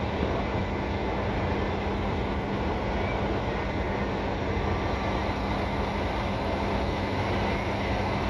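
Steady drone of a river vessel's engine heard from on board, with a constant low hum under an even wash of noise.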